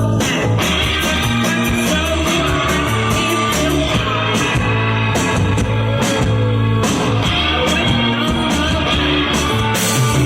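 A psychedelic rock band playing live: electric guitar lines over a steady bass and a drum kit keeping an even beat on the cymbals.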